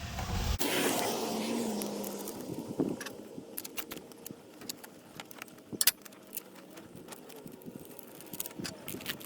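Scattered metallic clicks and clinks of battery cable terminals and hand tools as the cables are fastened onto the battery posts, with one sharper click near the middle.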